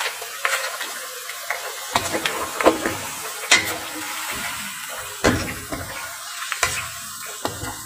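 A wooden spatula stirring and knocking irregularly against a wok, over the steady sizzle of instant noodles cooking in a little liquid.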